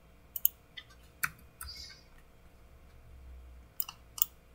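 Scattered sharp clicks of computer mouse and keyboard use: a quick run in the first second and a half, then a few more near the end, with a brief soft rustle between them.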